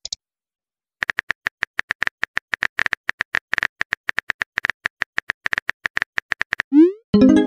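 Phone keyboard typing sound effect: a fast run of short clicks as a text message is typed out. Near the end comes a rising swoosh and a chime as the message is sent.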